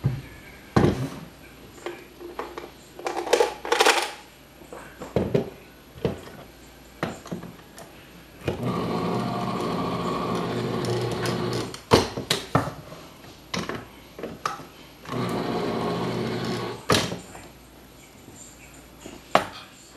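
Electric can opener running twice as it cuts the lid of a can of sweetened condensed milk: a longer run of about three seconds near the middle, then a shorter one of about two seconds, a longer cut on one side and a short one on the other. Clicks and knocks from handling the opener and the can come before and between the runs.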